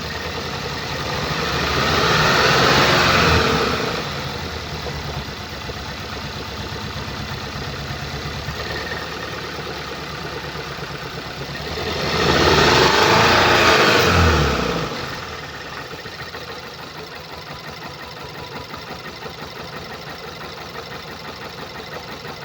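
2014 Skoda Octavia RS's 2.0-litre petrol four-cylinder idling, then blipped twice, about two seconds in and about twelve seconds in, each rise lasting a couple of seconds before it drops back to idle. Its running is marked by a misfire from a defective ignition coil and spark plug on cylinder 3.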